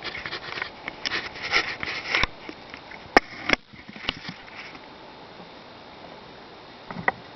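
Handling and rustling of a vintage Eureka-built canister vacuum cleaner, then two sharp clicks about a third of a second apart as its switch is worked. A steady faint hiss follows.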